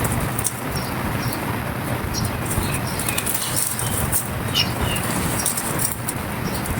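Dry, brittle texture material being crushed and crumbled by hand: a steady, dense crackle of small pieces breaking and rustling.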